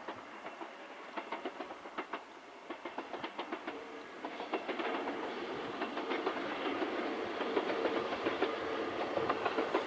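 Distant two-car diesel passenger train running along the line: irregular clicking of wheels over the track, with a steady engine hum coming in about halfway through as the sound grows louder.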